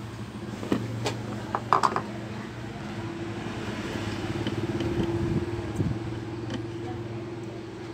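A few sharp clicks and knocks as a motherboard is handled on a workbench, over a steady low drone that swells about halfway through and then fades.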